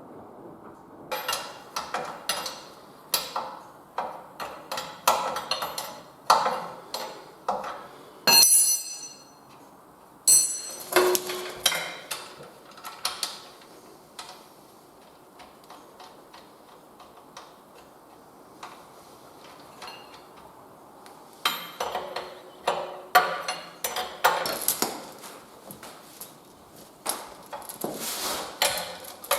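Irregular metallic clinks, taps and knocks of hand tools and steel hydraulic fittings being handled and tightened as hoses and quick couplers are fitted, with a couple of brief ringing clanks about a third of the way in and a quieter stretch in the middle.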